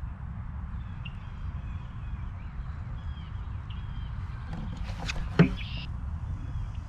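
A hive tool knocks and scrapes against the wooden frames of a beehive, with a sharp knock about five seconds in followed by a short scrape. Under it there is a low steady rumble of wind on the microphone and faint bird chirps.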